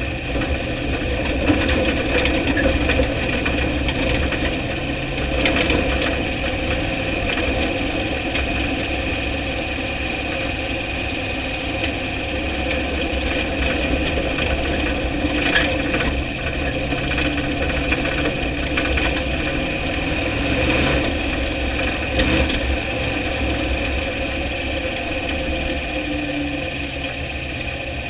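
Dirt-track race car's engine running steadily, heard from inside the cockpit, with little change in pitch. A few sharp knocks or rattles come through along the way.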